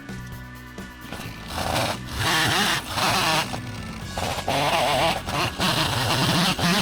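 Chickens squawking loudly in four or five harsh bursts, starting about a second and a half in, over background music.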